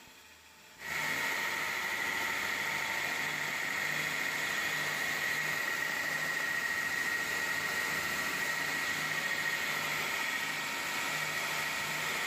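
Bench grinder converted to a belt sander, running with steel pressed against the abrasive belt: a steady grinding hiss with a high whine, starting abruptly about a second in. A faint low throb comes about twice a second underneath.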